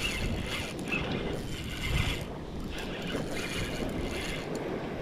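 Spinning reel being cranked in spurts, its gears whirring, as a hooked fish is reeled in against its pull.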